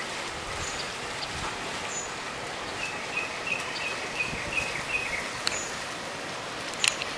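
Outdoor garden ambience: a steady hiss with birds chirping. About halfway, a bird gives a run of about eight short, even notes, roughly three a second. A single sharp click comes near the end.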